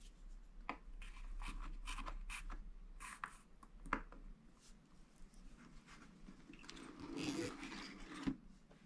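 Hands handling a spiral-bound scratch-art book as it is closed: card pages brushing and rustling with a few short scrapes, a light tap near the middle and a longer rustle ending in a sharp tap near the end.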